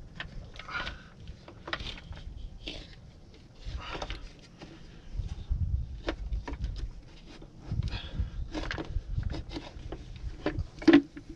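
Plastic crankcase filter cover being fitted back onto its housing on the truck's diesel engine: scattered clicks, knocks and short scrapes of plastic against the housing as it is pushed into place. A sharp knock near the end is the loudest.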